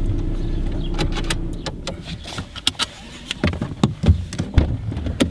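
Car engine idling with a low rumble that dies away about two seconds in as the car is parked and switched off, followed by a run of sharp clicks and knocks from the car being handled.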